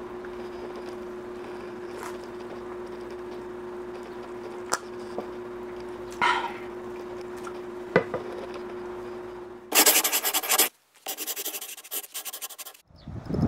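A steady low hum with a few faint clicks, then about three seconds of loud, dry scratching and rubbing that breaks up and cuts off abruptly near the end.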